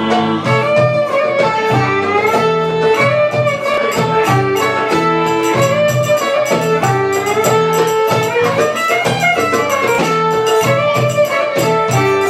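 Live belly dance music: a violin playing a melody with sliding notes over a plucked string instrument and bass guitar, with a steady percussion beat.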